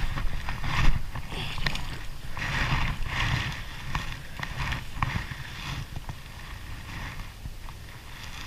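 Handling noise while a hooked bass is landed by hand: rustling and scuffing of a rain jacket and bankside grass, with scattered clicks and knocks from the spinning rod and reel, over a low rumble.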